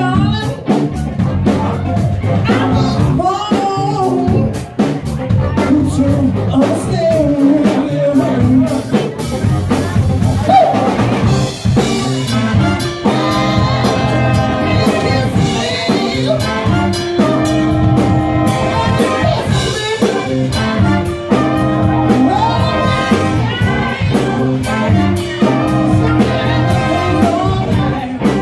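Live cover band playing a dance song, with drum kit, brass and a lead singer, recorded on a cell phone from the dance floor.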